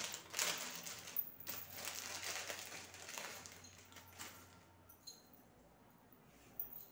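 A small plastic jewellery packet crinkling and rustling as it is unwrapped by hand, dying away after about four seconds, with a single faint click near the end.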